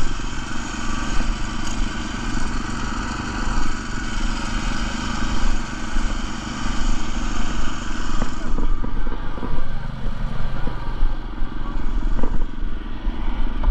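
Small gasoline engine on an airless paint line striper running steadily, with a high hiss over it that stops about eight and a half seconds in. A few light knocks near the end.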